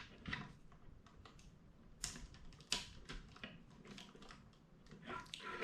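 Faint, scattered clicks and taps of plastic LEGO Technic parts being handled and pressed together, with a few sharper clicks about two seconds in and a cluster near the end.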